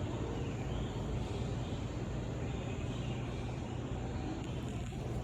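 Steady low hum under an even background noise, with no distinct events.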